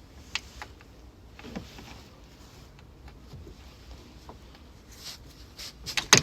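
Scattered clicks and knocks of a 10 mm socket wrench working the thermostat housing bolt loose, with a sharp, loud knock just before the end.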